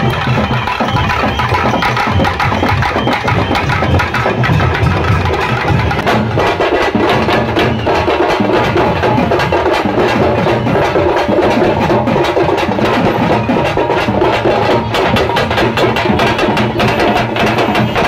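Procession drum band: many sticks beating wooden barrel drums and steel-shelled drums in a fast, dense, unbroken rhythm. A wind instrument plays a melody over the drums.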